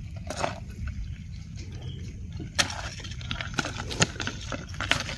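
Dry leaf litter crackling, with scattered sharp clicks and a few louder snaps about two and a half and four seconds in, as metal tongs and hands work among the leaves and a plastic collecting box.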